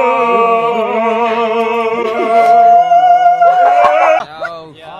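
Several voices singing long, loud held notes together with vibrato, breaking off about four seconds in.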